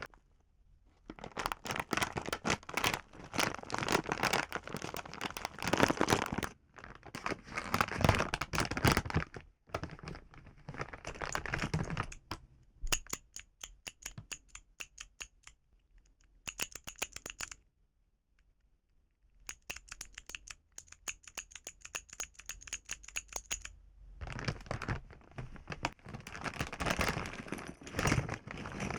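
Keyboard fidget toy being handled: stretches of dense clacking and rustling, and in the middle runs of separate, evenly spaced key clicks with a faint high ring.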